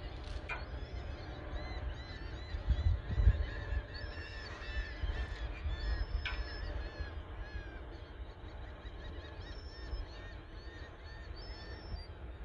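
A flock of birds calling: many short, arched, overlapping calls repeating throughout, over a low rumbling noise that swells about three seconds in. Two brief knocks stand out, near the start and about halfway through.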